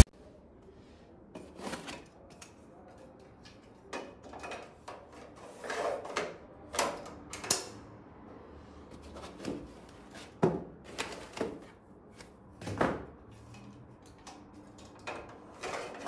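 Metal hard-drive caddies being handled and slid into the drive bays of a Dahua network video recorder: scattered clicks, knocks and short sliding scrapes at irregular intervals.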